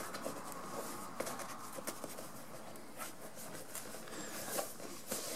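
Faint rustling and scratching of a vinyl seat cover being handled and pulled over padding, with small scattered clicks and a faint steady hum beneath.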